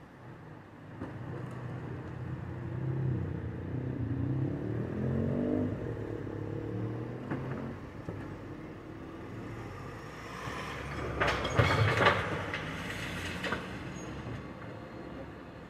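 Bin lorry engine running with a pitched whine rising for a second or so, about four seconds in. About eleven seconds in comes a loud clattering rush of a bin's contents being tipped into the lorry, lasting a couple of seconds.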